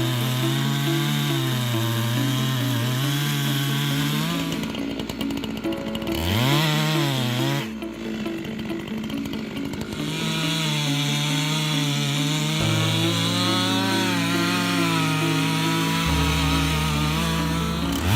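Two-stroke chainsaw running under load while cutting a tree, its engine note wavering up and down, with a short drop and rev back up partway through.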